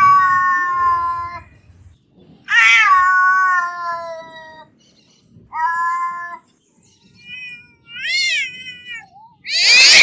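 Cat meowing: a series of separate meows with short pauses between them. One long, drawn-out meow falls in pitch about two and a half seconds in, another wavers up and down around eight seconds, and a loud, harsher meow comes near the end.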